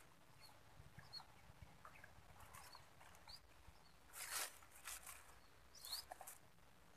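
Quiet pond-side ambience: a few faint, short, high rising chirps, and two brief rustling noises about four and six seconds in.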